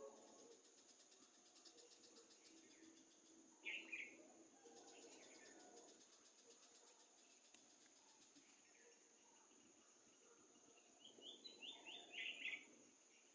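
Faint bird calls over a steady high insect drone: one short burst of chirps about four seconds in, and a quick run of chirps near the end.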